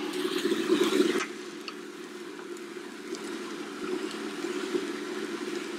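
Steady hum of a running induction cooktop, with a louder rustling noise for about the first second. A few faint scrapes follow as a spoon stirs quinoa and vegetables in a stainless steel pan.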